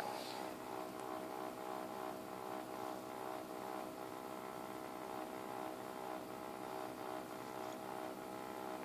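XSPC X2O 750 water-cooling pump running with a steady whine made of several tones at once and a faint, regular pulsing over it: the weird noise of a defective pump, later replaced under warranty.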